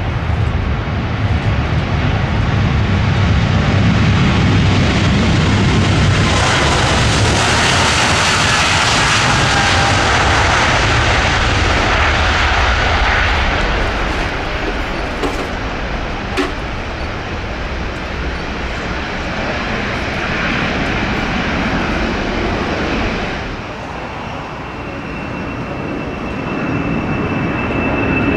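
Jet airliner passing: a deep engine rumble for the first several seconds, then a hissing whine that swells and fades through the middle. A thin steady high tone joins near the end.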